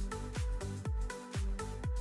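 Background music: a steady deep beat about twice a second, each stroke dropping in pitch, under held notes.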